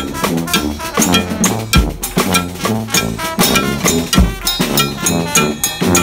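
Street brass band playing on the march: sousaphones, trumpets and trombones over snare drums, a bass drum with a mounted cymbal, and a cowbell, to a steady beat.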